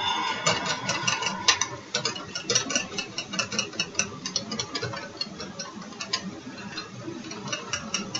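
A metal utensil clicking rapidly and irregularly against cookware, several ticks a second, while garbanzo-bean batter is worked for a flatbread.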